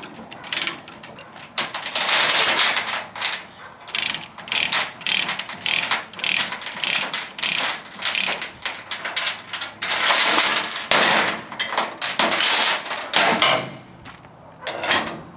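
Chain ratchet load binder being worked by its handle: runs of rapid ratchet-pawl clicking, over and over, with a last short clatter near the end.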